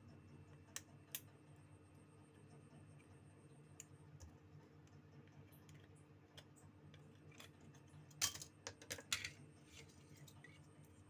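Scattered small clicks and taps of tools and phone parts being handled during a phone repair, with a cluster of louder clicks about eight to nine seconds in, over a steady low electrical hum.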